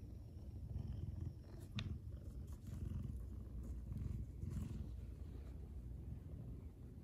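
A cat purring close to the microphone, a low pulsing rumble, while its chin is scratched: a sign of a content cat. A few light clicks are heard over it.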